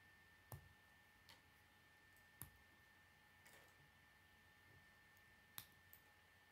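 Faint clicks of K'nex plastic rods and connectors being snapped together by hand: a few separate sharp clicks spread over several seconds, three of them stronger than the rest, over a faint steady high-pitched tone.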